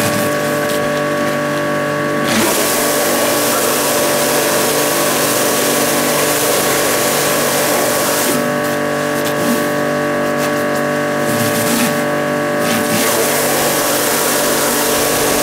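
Ruris PRO Power Jet 1900 pressure washer running, its induction motor and pump giving a steady hum under a loud hiss of water spraying through the floor brush onto concrete. The spray hiss grows stronger about two seconds in and thins for a few seconds after the middle.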